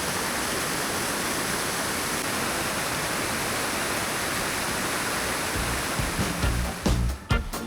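Steady rush of water from the Thiririka River's falls and rapids. About six seconds in, background music with a bass and drum beat comes in.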